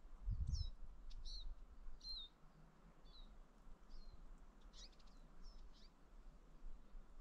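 Small birds giving short high chirps, about a dozen scattered calls, faint against a quiet background. A low thump about half a second in.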